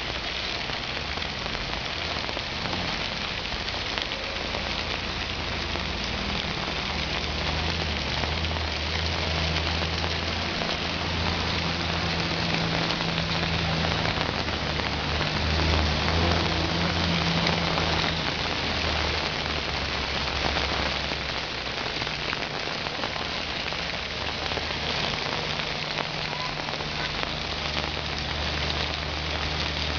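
Heavy rain falling steadily, with the low hum of vehicle engines passing close through the floodwater, strongest in the middle and again near the end.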